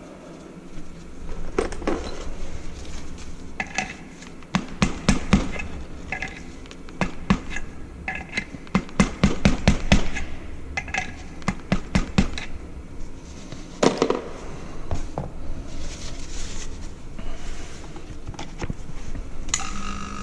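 Metal tools and small metal pump parts knocking and clinking, with runs of quick sharp taps and short metallic rings, during work on a rotary vane vacuum pump's oil seal.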